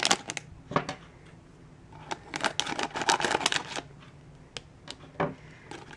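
Crinkling and crackling of a plastic-foil toy blind bag being handled and worked open by hand, in short irregular bursts that are busiest in the middle.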